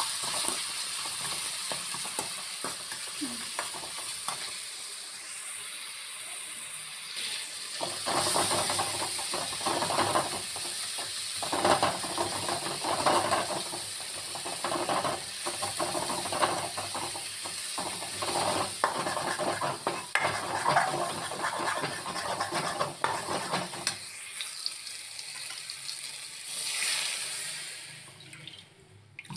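Tomato masala frying in a metal kadai with a steady sizzle, while a steel ladle stirs and scrapes against the pan. The scraping and clatter are busiest through the middle of the stretch and die down near the end.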